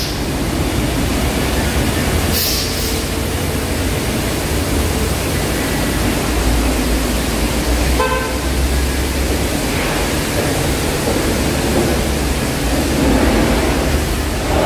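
Steady loud rushing noise of car-wash equipment and water in a tiled wash bay. There is a short hiss about two seconds in and a brief tooting tone about eight seconds in.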